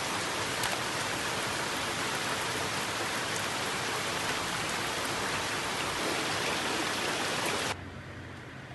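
Steady rain falling on trees and leaves, an even hiss of drops; near the end it drops abruptly to a quieter rain.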